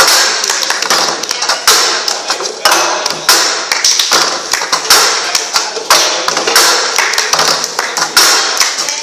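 Cups tapped and knocked on a table in the cup-game rhythm: a quick, repeating pattern of knocks with a louder stroke about once a second.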